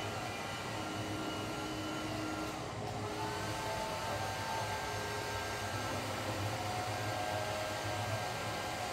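A steady whooshing noise of a fan or blower running, with faint held tones that shift in pitch every second or two.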